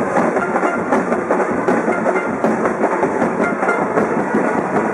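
Street parade din: a marching band's drums and brass with crowd noise, a dense clatter of percussion with few clear notes.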